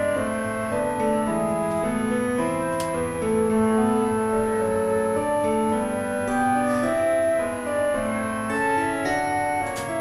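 Background piano music with held, overlapping notes.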